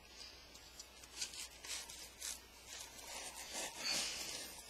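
A utility knife slitting packing tape and scraping along a cardboard shipping box: several short scratchy strokes.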